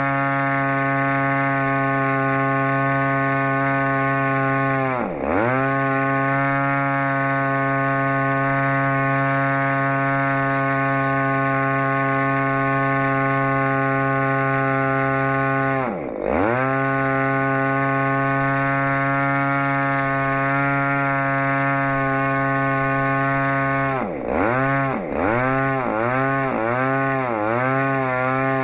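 DLE-35RA single-cylinder two-stroke gasoline engine running at high speed on a test stand, spinning its propeller. The engine speed drops sharply and picks back up about five seconds in and again around sixteen seconds, then dips several times in quick succession near the end as the throttle is worked between idle and full power.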